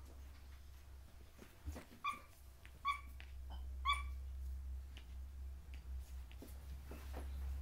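Belgian Shepherd puppies play-fighting: three short, high yips about two, three and four seconds in, amid soft scuffling clicks, over a low steady hum.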